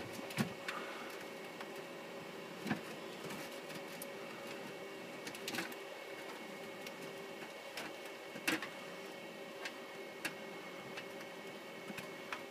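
Steady hum and whir of network switches' cooling fans, with a few sharp clicks and knocks scattered through it.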